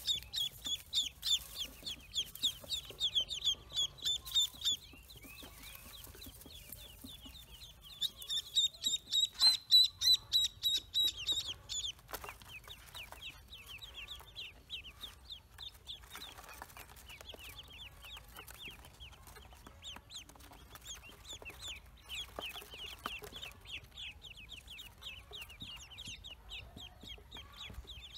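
Newly hatched ducklings peeping: fast, high, repeated peeps from one or two close by, loudest in the first few seconds and again around ten seconds in, then a whole crowd of ducklings peeping together more softly.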